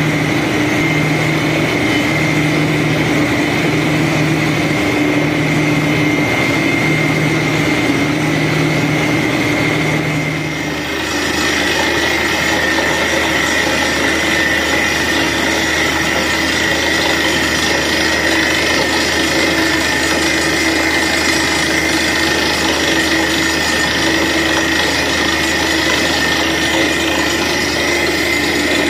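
Truck-mounted borewell drilling rig running while it drills: loud, continuous engine and machinery noise. For the first ten seconds there is a low throb about once a second, then the sound shifts to a steadier noise with a high whine.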